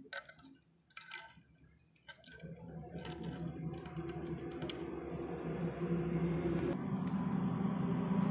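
A few light clicks and clinks of small metal parts being handled over the first two seconds, then a steady engine hum that comes in about two seconds in and grows louder and louder as a motor vehicle approaches.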